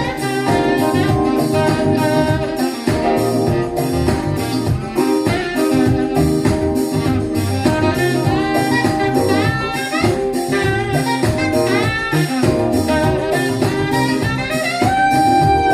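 Recorded pop-rock song in an instrumental stretch between verses, with a steady drumbeat and a lead line of gliding notes, played back through 1970s vintage loudspeakers driven by a class D amplifier.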